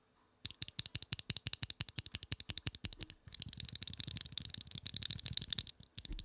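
Rapid mechanical keyboard keystrokes, about ten clicks a second, starting about half a second in and turning deeper and thuddier from about three seconds in. The sound is a thocky one.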